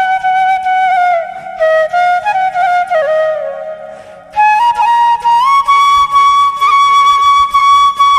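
Background music: a solo flute playing a slow melody of long held notes with small bends, fading briefly about four seconds in before going on with a higher held note.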